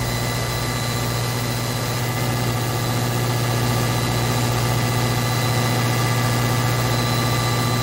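Steady low hum with an even hiss over it, with no distinct events.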